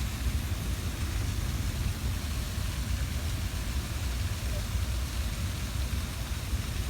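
Freight train cars rolling slowly past: a steady low rumble with a hiss over it.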